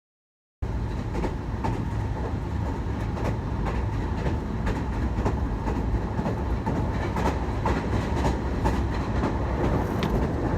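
Dead silence, then about half a second in a steady rumble starts suddenly, with a faint steady hum and frequent sharp clicks over it.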